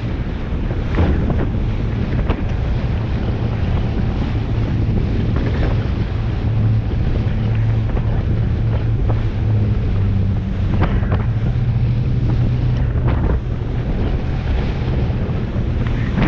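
Boat engines running under way with a steady low hum, wind buffeting the microphone, and waves or spray splashing against the hull now and then.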